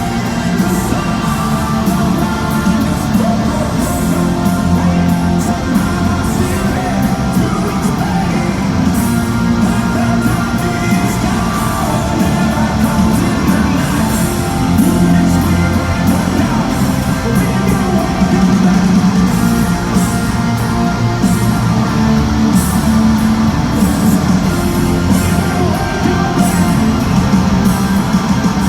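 Rock band playing live and loud, with electric guitars and drums, and singing over the top.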